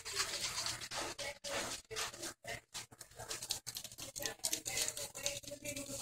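A soda can being handled and shaken by hand: an irregular run of rustles and soft knocks.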